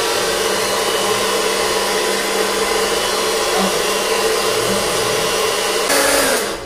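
Hair dryer blowing cold air, drying a layer of lace-wig glue until it turns tacky. It gets louder near the end and then switches off.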